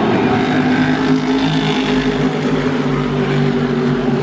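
A pack of modified race cars' V8 engines running at racing speed around a short oval track, a loud, steady, layered engine drone.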